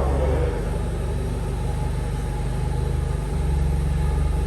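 A vehicle engine running at low speed: a steady low rumble that eases off slightly about half a second in and grows a little louder after about three seconds.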